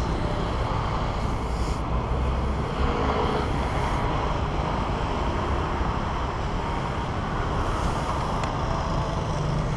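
Steady street traffic noise, a dense even rumble of passing vehicles.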